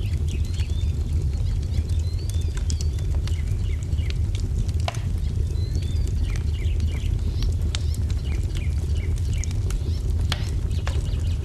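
Wood fire burning with a steady low rumble and irregular sharp crackles and pops, while small songbirds chirp in short rising and falling notes.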